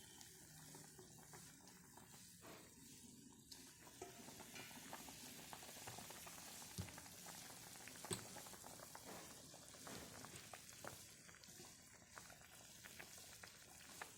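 Fish curry bubbling and sizzling faintly in a pan, with a few light knocks.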